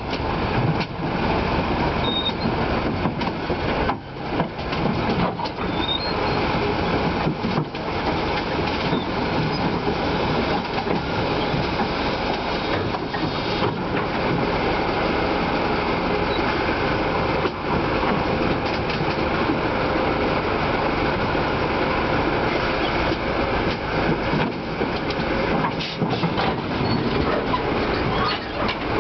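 Heavy vehicle or machinery running: a loud, continuous rumble and clatter, with a few brief knocks.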